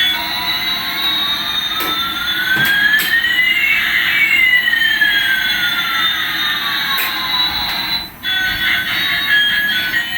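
Electronic sound effect of two pure tones gliding past each other over about eight seconds, one rising and the other falling, crossing midway. It cuts off suddenly near the end, where background music takes over.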